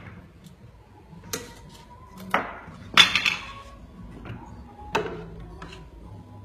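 A handful of sharp knocks and taps, the loudest a quick cluster about three seconds in, with faint background music underneath.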